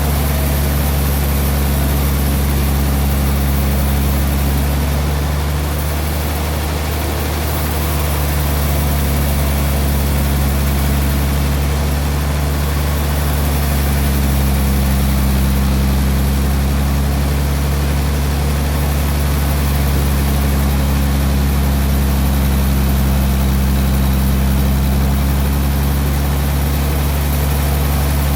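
Sawmill machinery running steadily: a loud, constant low hum with a rushing noise over it, with no breaks or sudden changes.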